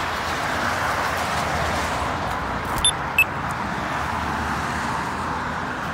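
Steady road traffic from cars driving past on a multi-lane road. Two brief, high-pitched chirps about three seconds in.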